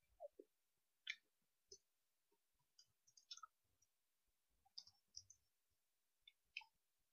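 Faint, irregular clicks of computer keyboard keys being typed, a few keystrokes at a time with short gaps between.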